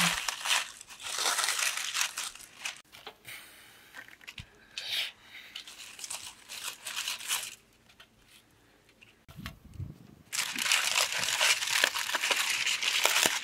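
Aluminium foil crinkling and rustling as it is peeled open by hand, in several spells with short pauses, the longest and loudest near the end.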